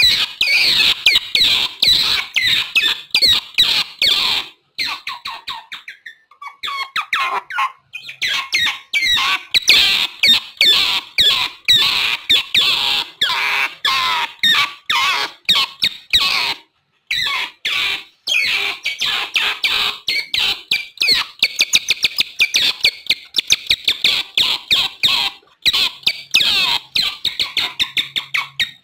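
Otters calling: rapid runs of high-pitched chirps and squeaks, several a second, broken by a few short pauses.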